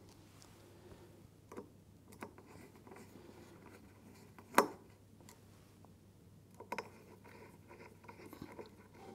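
Faint handling sounds of a screwdriver tightening small screws into an LED board on its heatsink: scattered light clicks and taps, the loudest a single sharp click about halfway through, with a double click a couple of seconds later. A faint steady low hum lies underneath.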